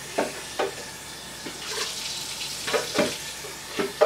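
Water running from a kitchen tap into a container, with a scattering of clinks and knocks of kitchenware.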